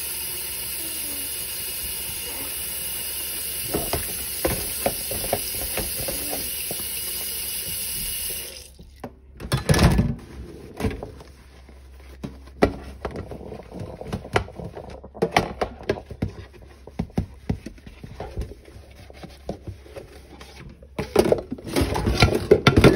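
Kitchen tap running steadily into a stainless-steel sink of soapy dishwater, shut off about eight seconds in. Then a sponge scrubs a plastic food container in the suds, with wet squelches, splashes and knocks; the loudest come about ten seconds in and near the end.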